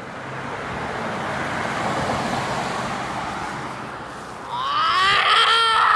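A car passing on the road, its tyre and engine noise swelling to a peak about two seconds in and then fading. Near the end a long pitched sound rises and then wavers.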